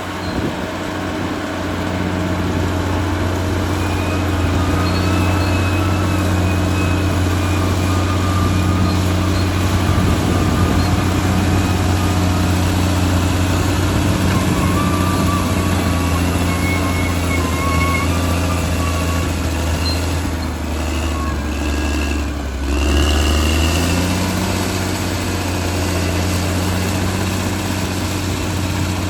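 Caterpillar D6R XL bulldozer's diesel engine running steadily, with faint wavering high squeals on and off. About 23 seconds in, the engine note drops briefly and then settles at a slightly different pitch.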